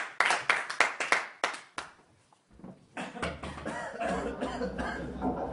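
A fast run of sharp clap-like hits that thins out and stops about two seconds in. After a brief lull, a steady low hum of room noise sets in.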